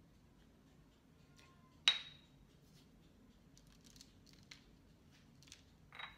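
A sharp clink with a brief ring about two seconds in, then faint scattered ticks and a short rustle as instant oat flakes and seeds are sprinkled by hand onto shaped loaves of dough on baking paper.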